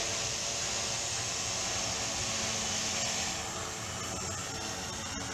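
Alien H680 multirotor drone hovering, its electric motors and propellers making a steady whirring hum over an airy hiss. The hiss drops a little about three seconds in.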